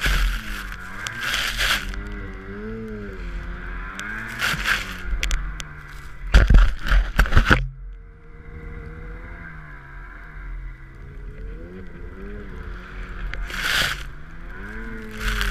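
Snowmobile engine running, its pitch rising and falling as the throttle works, while the sled ploughs through deep powder. Loud bursts of snow spray and wind hit the microphone, the loudest about six to seven and a half seconds in.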